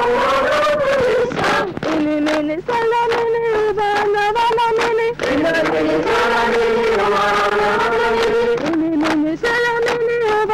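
A group of girls singing a chant in unison, with long held notes, to hand clapping.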